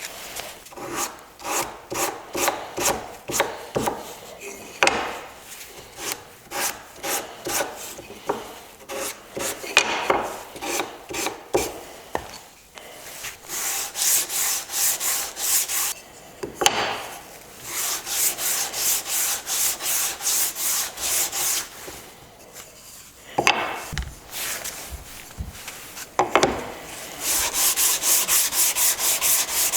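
Wood being worked by hand with rhythmic back-and-forth rubbing strokes, about two to three a second, broken by a few short pauses. Near the end the strokes get faster and hissier.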